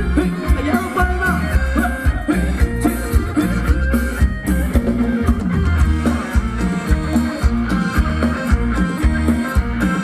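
Live band playing ramwong dance music with a steady, bass-heavy beat.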